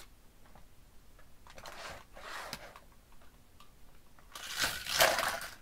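Plastic toy train set being handled: soft rustling and clattering of plastic pieces, with a louder rustle near the end.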